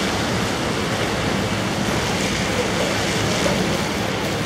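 A steady rush of water: an SUV driving slowly through standing floodwater, its tyres throwing up spray, under heavy rain.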